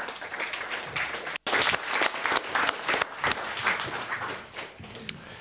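Audience applauding: many people clapping together, dying away near the end.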